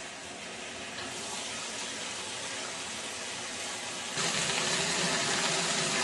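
Water pouring into the tub of a Whirlpool direct-drive top-load washer as it fills on the regular cycle: a steady rushing that gets louder about four seconds in.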